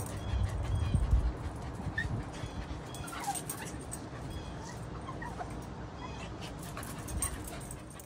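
Puppy whimpering, with a few short high whines and yips scattered through, over a low rumbling background.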